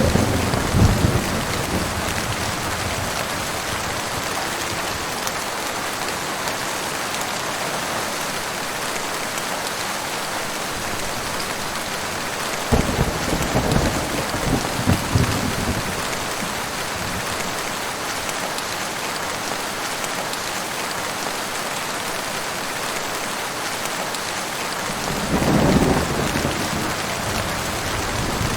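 Heavy rain falling in a steady hiss, with rolls of thunder rumbling about halfway through and again near the end.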